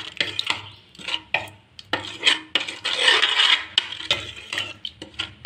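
Metal ladle stirring thick chickpea gravy in an open pressure cooker pot: irregular clinks of the ladle against the pot's sides, about two a second, over a wet swishing and scraping.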